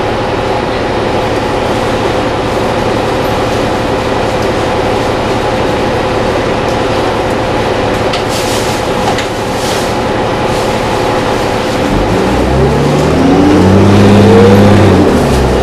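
Interior of a New Flyer D40LF city bus: a steady cabin hum while it stands, then its Cummins ISL diesel engine pulls away from about twelve seconds in, rising in pitch, dropping back briefly as the transmission shifts up, and rising again.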